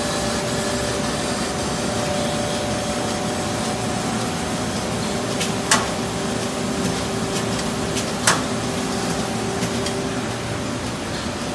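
Steady mechanical hum of pressroom machinery running, with a few even tones under a wash of noise. Two sharp clicks or knocks, one about halfway through and another about two and a half seconds later.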